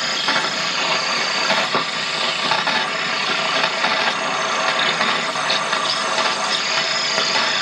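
Medium-wave radio reception from a Sony AM/FM tuner swamped by the "chuh, chuh" noise of the PLC-driven stepper motor turning its tuning knob. The motor's pulses interfere with the radio as it sweeps the band.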